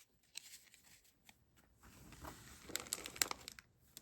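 Faint crinkling and handling of foil booster-pack wrappers and trading cards, with a cluster of louder crinkles about three seconds in.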